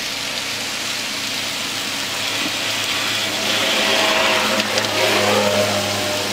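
Chicken masala sizzling in a large iron kadai as a metal ladle stirs and scrapes through it, over a steady low hum. The sizzle grows louder about halfway through, with a couple of sharp ladle knocks against the pan shortly after.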